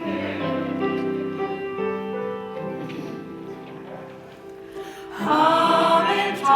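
Instrumental music with held chords. About five seconds in, a group of voices joins, singing louder together as a song begins.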